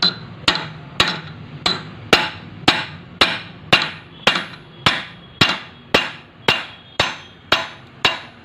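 Hammer tapping on the high-low gear of a Farmtrac 60 tractor gearbox to seat it on its shaft, steady even blows about two a second, each with a short metallic ring.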